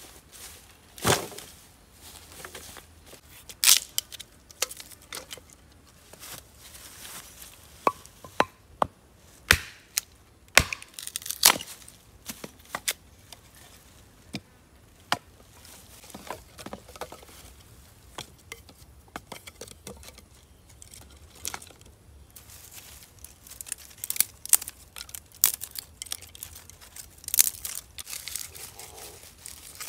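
Dry sticks cracking and snapping as firewood is broken and handled, then sticks and dry bark clattering and rustling as kindling is laid in a stone fire pit. The sharp cracks come irregularly, the loudest about 4, 10 and 11 seconds in.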